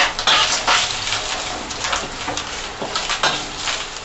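Shredded dried scallops sizzling in a wok while a metal spatula stir-fries them, scraping against the wok in quick, repeated strokes.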